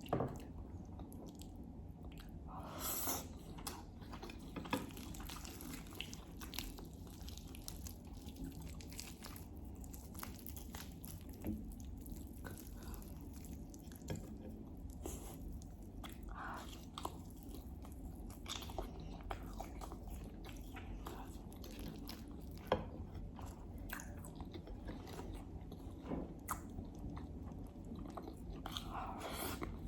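Close-miked chewing of Persian herb stew, dill rice and lamb: many small wet mouth clicks, with a few louder bites spread through the stretch, over a faint steady low hum.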